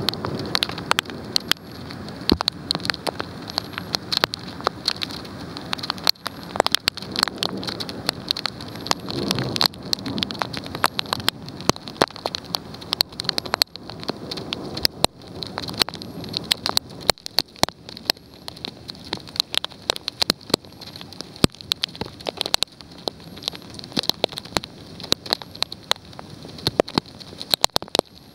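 Heavy storm rain pouring down, with many sharp taps of drops striking a nearby surface; the taps grow sparser over the second half.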